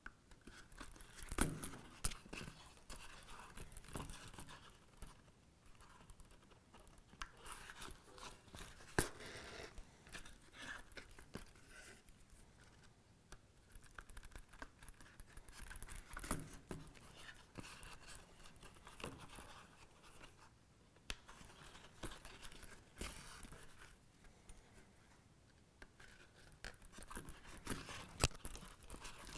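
Hand saddle stitching of leather: waxed thread drawn through the stitching holes and the leather piece handled, heard as faint, intermittent scratchy pulls and rustles with a few light clicks.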